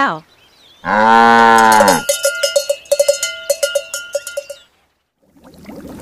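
A cow moos once for about a second. Then cowbells clank irregularly for a couple of seconds.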